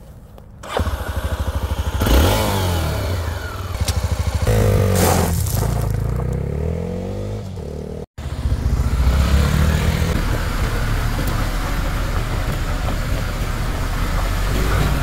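Honda XR250 Tornado's air-cooled single-cylinder four-stroke engine accelerating, its pitch rising and falling twice as it pulls through the gears. After a sudden break about eight seconds in, the motorcycle runs steadily with a low rumble as it rides closer.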